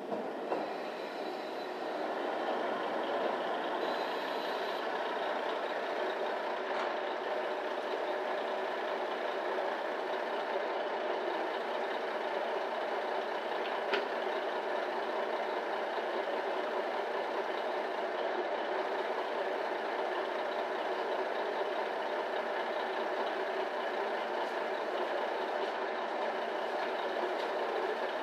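Diesel railcar engine idling steadily at a standstill, a little louder from about two seconds in, with one short sharp click about halfway through.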